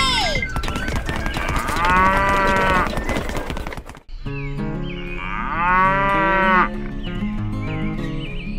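Cow mooing twice, each call between one and two seconds long, over background music.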